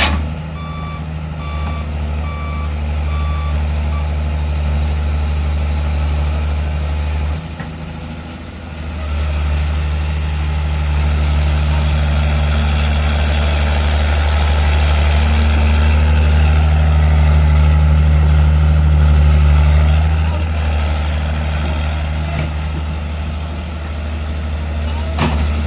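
Diesel engine of heavy construction machinery running under load, dropping briefly about eight seconds in, then building up louder for several seconds. A reversing alarm beeps repeatedly during the first few seconds.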